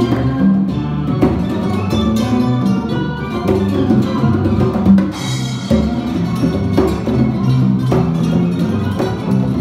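Live instrumental band playing: acoustic guitar, electric bass and percussion, with a steady beat and one louder accented hit about halfway through.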